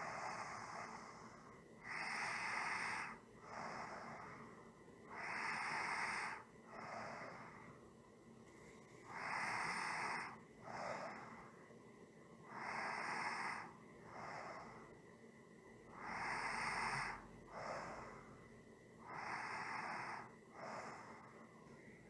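A person breathing slowly and steadily, a breath about every three and a half seconds, each a louder rush of air followed by a shorter, softer one.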